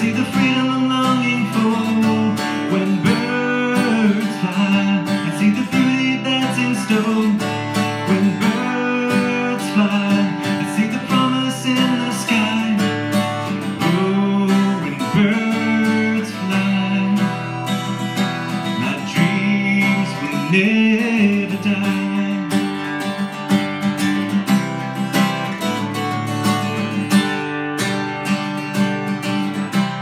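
A man singing while strumming chords on an acoustic guitar.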